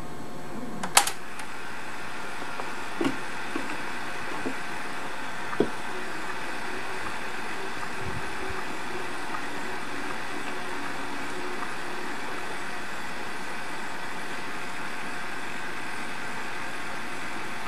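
1961 Webcor Microcorder EP 2104 portable reel-to-reel tape recorder running its tape transport on 9-volt power, a steady mechanical whir. There is a sharp click about a second in and a few softer clicks around three and five and a half seconds.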